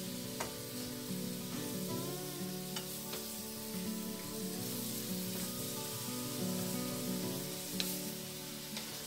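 Shrimp, broccoli and bell pepper sizzling in a metal wok while a wooden spatula stirs them, with a few sharp scrapes and knocks of the spatula against the pan. Soft background music with held notes plays throughout.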